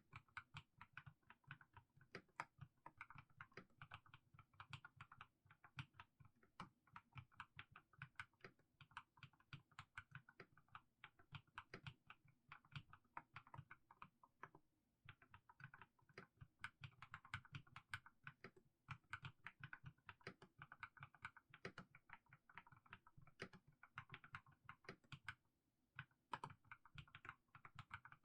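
Mechanical keyboard with fully lubricated Haimu Sea Salt switches being typed on in a steady stream of keystrokes. There are brief pauses about halfway through and again near the end.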